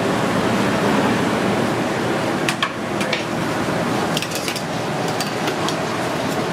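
Sharp metallic clinks and clanks as steel tongs knock together and a steel Blodgett oven door is handled and opened, over a steady rushing noise. The clinks come in two short clusters, a little past the middle and again about a second later.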